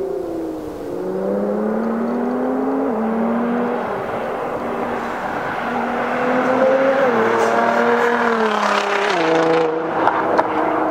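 Nissan GT-R R35's twin-turbo V6 through an Armytrix valvetronic exhaust, accelerating hard as the car drives past. The engine note climbs and drops back several times and grows louder from about seven seconds in as the car nears, with a few sharp cracks near the end.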